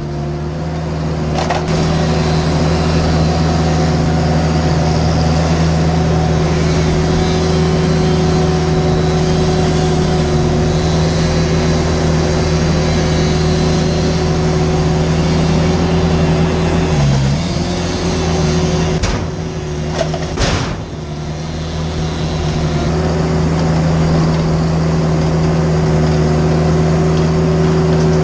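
Heavy equipment's engine running steadily at a constant speed, with a brief dip in pitch partway through and a couple of short knocks.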